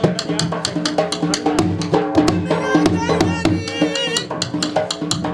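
Dhol drumming at a fast, steady beat, with a pitched melody over the drums and a wavering high line in the middle, playing Punjabi jhumar dance music.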